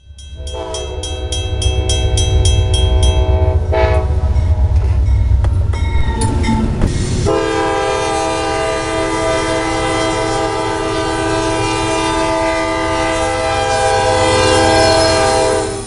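Train air horn sounding several notes at once, in a blast of about four seconds and then a longer one from about seven seconds in to the end, over the low rumble of a train.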